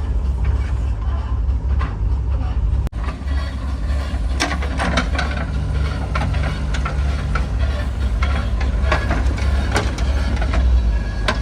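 Heavy diesel earthmoving machinery running with a steady low rumble, with a brief break about three seconds in. From about four seconds in there are many sharp knocks and clanks.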